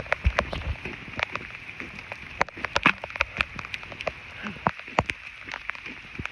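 Rain falling steadily, with many irregular sharp taps of drops landing close by.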